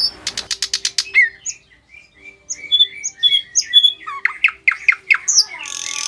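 Caged thrush nightingale singing: a fast run of clicks, then a string of clear whistled notes and quick falling sweeps, ending in a harsh drawn-out rasp.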